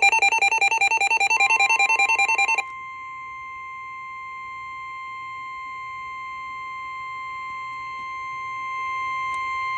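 NOAA Weather Radio alert tones: a rapidly pulsing electronic warble, about seven beeps a second, stops after about two and a half seconds. It overlaps and gives way to the steady 1050 Hz warning alarm tone, which holds to the end and signals that a new warning message is about to be read.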